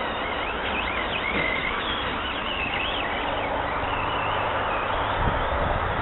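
Electric motor of a Traxxas Slash RC truck whining, its pitch rising and falling repeatedly with the throttle, over a steady rushing hiss.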